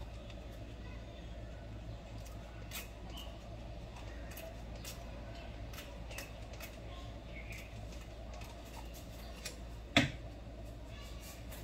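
Scattered light clicks and taps of items being handled on a kitchen counter, with one sharp knock about ten seconds in, over a steady low hum.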